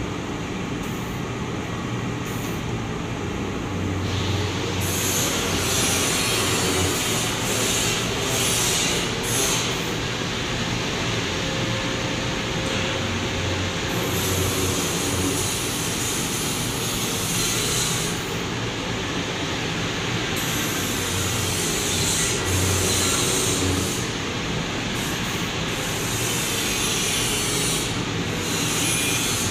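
Two-colour UV-drying screen printing machine with three servo motors running through its automatic print cycle, its table and squeegee mechanisms moving in a pattern that repeats every six or seven seconds over a steady mechanical hum.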